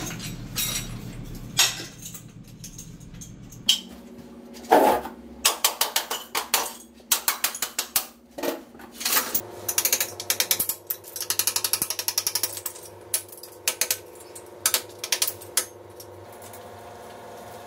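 A string of clicks, clinks and rattles from hands-on work on a broken ceramic washbasin. Broken basin shards are gathered up, and runs of rapid ratcheting clicks come from a wrench turning the seized wall anchor bolts.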